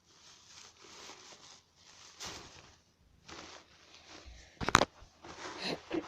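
Handling noises from slime-making: soft rustling and crinkling, with one sharp click or knock about three-quarters of the way through.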